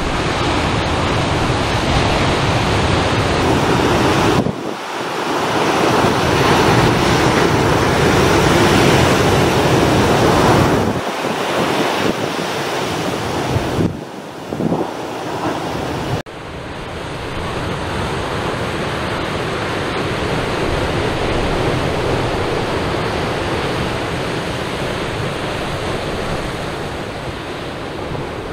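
Rough ocean surf breaking and washing up a sandy beach among rocks, a continuous rushing wash with brief lulls, under wind buffeting the microphone. The heavy surf comes ahead of a hurricane passing offshore.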